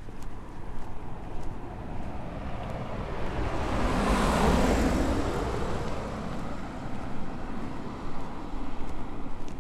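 A small kei pickup truck drives past close by. Its engine and tyre noise builds to a peak about four to five seconds in, then fades away.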